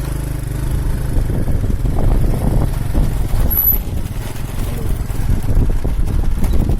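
Small boat engine running with a steady low rumble, growing a little louder over the first few seconds.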